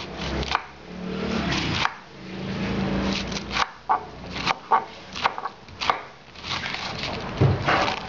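A kitchen knife slicing through a half cabbage and knocking on a wooden chopping board, in an irregular run of cuts. A low hum sounds in the background during the first few seconds.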